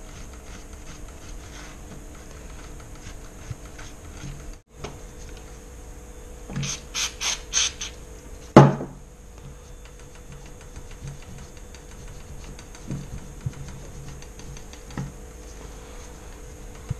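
A rag rubbing over fresh paint on a gel blaster, stripping it back for a worn look; past the middle, about four short hisses of an aerosol can of brake cleaner sprayed onto the rag, then a sharp knock as the can is set down on the wooden table, and more rubbing.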